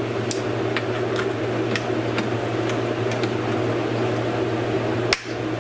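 Steady mechanical hum, like a running fan, with scattered light clicks and a sharper click about five seconds in from hand tools working at a stubborn bolt.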